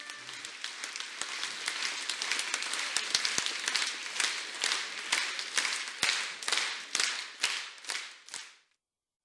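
Theatre audience applauding an opera cast. The dense applause settles into rhythmic, in-time clapping at about three claps a second, then fades out about a second before the end.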